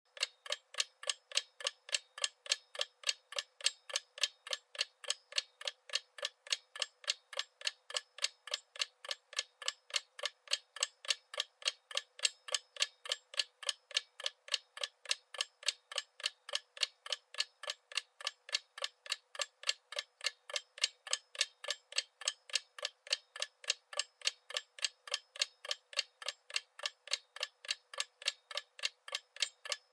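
Clock ticking steadily and evenly, about three crisp, thin ticks a second with no low end.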